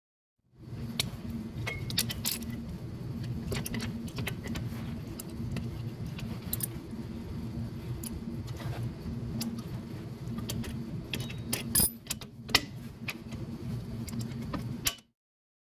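Small metal parts clinking and tapping during drum brake work, scattered sharp clicks over a steady low hum.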